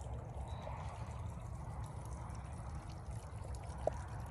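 Water left running into a horse trough, overflowing and flowing off across the ground in a steady stream, a sound the filmer likens to a rushing creek.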